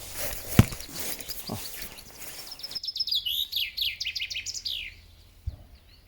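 Small songbird singing a quick run of high chirps, starting about three seconds in. It follows a stretch of steady noise with one sharp click about half a second in.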